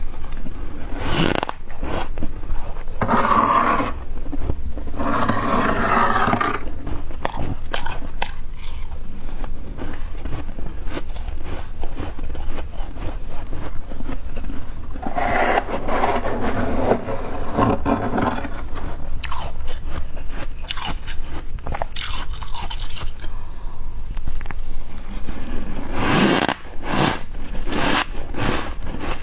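Spoon scraping frost and close-up biting and chewing of soft, powdery humidifier frost, crunching in repeated bouts, with denser stretches of crunching several times.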